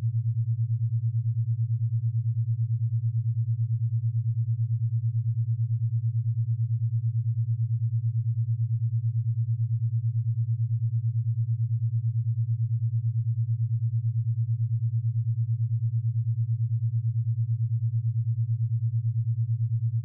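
Low, steady synthesized drone sound effect: a single deep hum with a fast, even pulsing, made as an eerie basement ambience.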